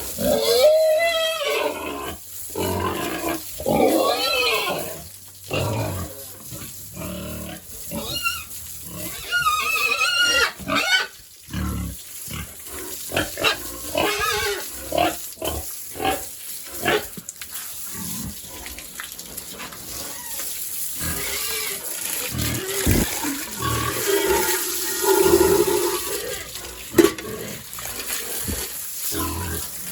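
Pigs squealing and grunting. Calls rise and fall in pitch in the first few seconds and again around ten seconds in, then come a series of short knocks.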